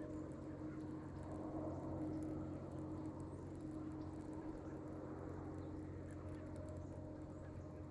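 Steady low hum of a bass boat's electric trolling motor, unchanging throughout, with faint scattered ticks above it.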